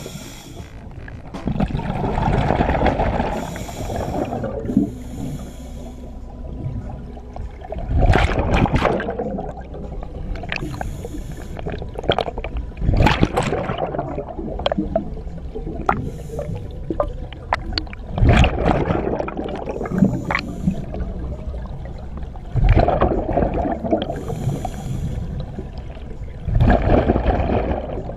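Scuba diver breathing underwater through a regulator: a hissing inhale, then a louder rush of exhaled bubbles, repeating about every five seconds.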